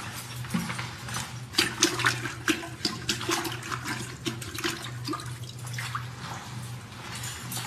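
Water splashing and sloshing in a toilet bowl, a quick run of splashes thickest in the first half, over a steady low hum.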